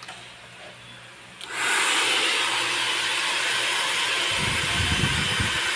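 Handheld hair dryer switched on about a second and a half in, then blowing steadily on wet hair, with a brief low rumble near the end.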